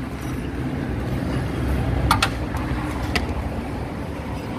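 A motor vehicle engine running with a steady low hum, and a few sharp clicks about two seconds in and again a second later.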